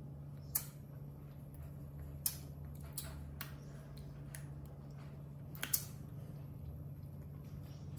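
A few short, sharp mouth clicks and smacks from a baby macaque licking and biting a lollipop, over a steady low hum.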